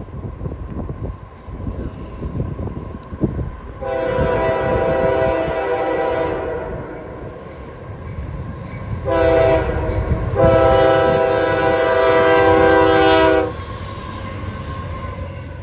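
Freight locomotive air horn sounding one long blast, then a short one and a long loud one, over wind buffeting the microphone.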